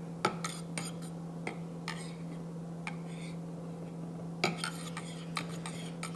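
A kitchen utensil clinking and tapping against a mixing bowl: scattered light clicks, with a quick flurry of them about four and a half seconds in, over a steady low hum.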